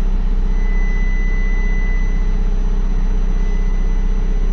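Isuzu FTR medium-duty diesel truck engine idling steadily, a constant low drone. A thin steady high tone sounds over it and fades out about halfway through.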